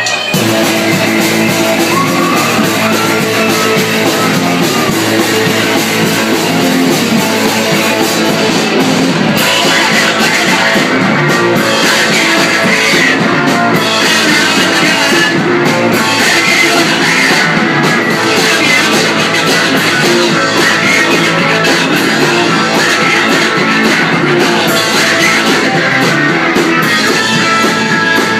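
Live rock band with electric keyboard and drum kit kicking in right after a count-in, then playing loud and steady.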